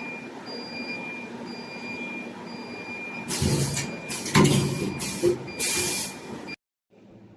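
CNC tube chamfering machine running with a steady hum and an intermittent high tone. About three seconds in come four loud hissing bursts with a heavy clunk among them, and then the sound cuts off abruptly.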